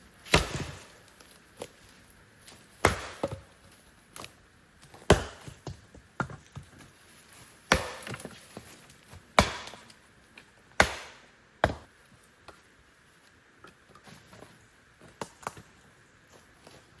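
Wood being chopped by hand: about seven sharp, heavy strokes a couple of seconds apart, followed by a few lighter taps near the end.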